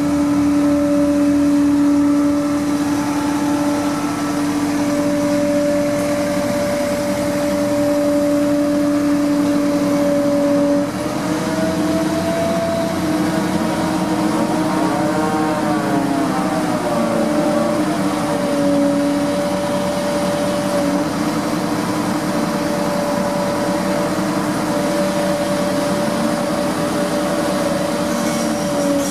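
Liebherr LTM1350-6.1 mobile crane running during a lift: a steady engine hum with a whine held at one pitch. About halfway through, the pitch shifts and wavers up and down for several seconds, then settles steady again.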